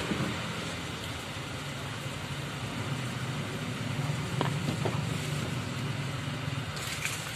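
A steady low mechanical hum, like an engine running nearby, under a haze of background noise. A few light clinks come near the end.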